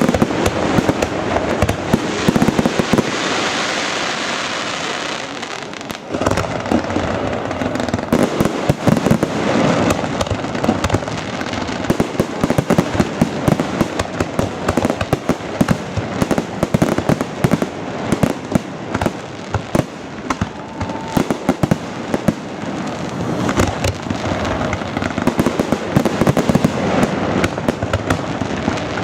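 Fireworks display: a dense run of bangs and crackling, with a smoother hissing spell about three seconds in, then a fresh barrage of sharp reports starting about six seconds in.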